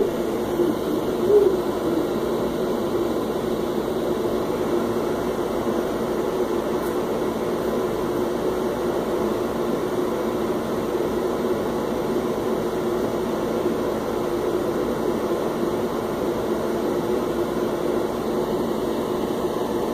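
Steady mechanical hum with an even hiss underneath, unchanging throughout.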